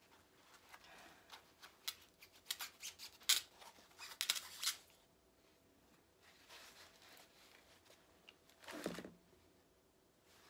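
Plastic and foam packing wrap crinkling and rustling as it is handled and pulled off a sewing machine: a run of sharp crackles in the first half, then a single louder swish near the end.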